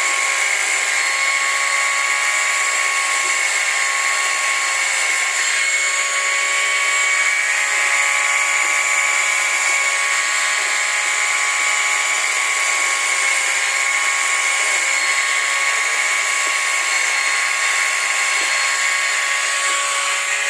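A power tool's motor running steadily at a constant high pitch.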